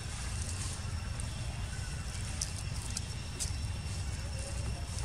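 Steady low outdoor rumble, with a few faint clicks and rustles of dry leaf litter as macaques move about on it.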